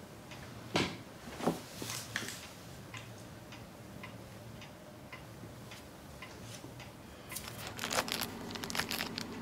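Quiet room with a few soft clicks and knocks in the first two seconds, then crinkling and rustling handling noises from about seven seconds in.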